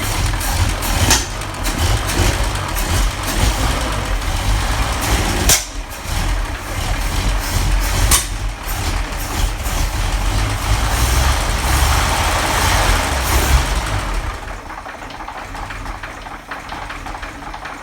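1940 Chevrolet 216 straight-six engine running, a steady low rumble with a few sharp clicks; the engine has worn bearings and low oil pressure and needs a rebuild. The sound drops off noticeably about fourteen seconds in.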